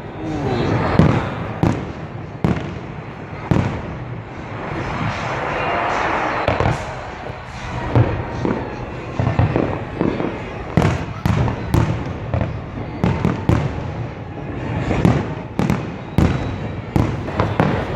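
New Year fireworks display: aerial shells bursting in many sharp bangs, spaced out at first and coming in quick succession from about halfway on, with a steady rushing noise about six seconds in.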